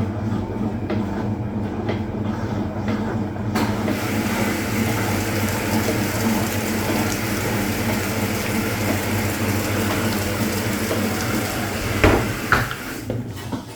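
Hoover Automatic 820 washing machine running with a steady motor hum; about three and a half seconds in a hissing rush joins. Near the end two loud knocks and the machine winds down, the load off balance.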